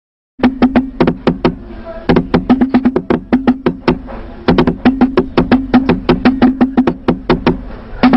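News programme theme music: a fast, even run of sharp percussion strikes over a held low note. It starts suddenly about half a second in.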